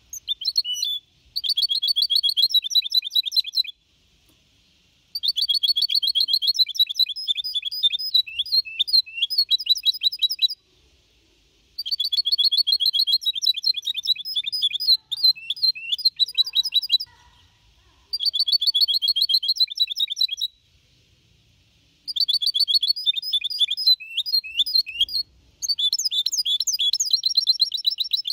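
Young goldfinch × canary hybrid ('mixto'), about four and a half months old, singing a clean Copia Málaga song. It sings five runs of fast, high twittering phrases, each a few seconds long, with short pauses between them.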